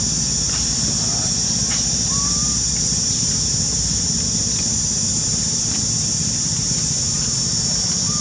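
Steady high-pitched insect chorus of forest ambience over a low steady rumble, with a couple of faint short rising chirps, one about two seconds in and one at the end.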